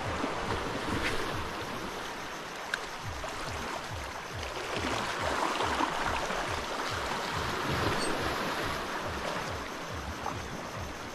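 Water splashing and hissing, with a steady low thumping about four times a second from a spinning reel being cranked to retrieve the lure, and a single click about three seconds in.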